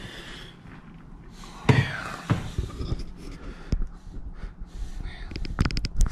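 Handling noises: a sudden rustle about two seconds in, then scattered sharp clicks and knocks, several in quick succession near the end.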